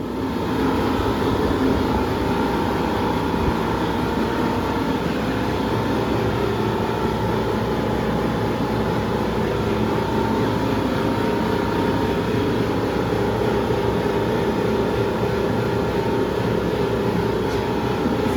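A motor-driven machine running steadily with a constant hum, coming on at the start and holding the same level throughout.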